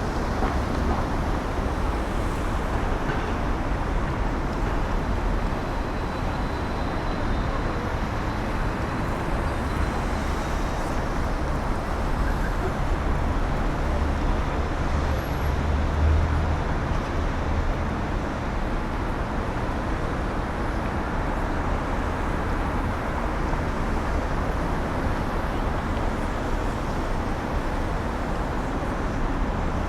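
City street ambience: steady traffic noise, a continuous rumble and hiss of passing road vehicles, swelling a little about halfway through.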